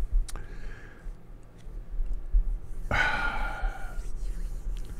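A man's sigh, one long exhalation lasting about a second, about three seconds in, with a small click shortly before it.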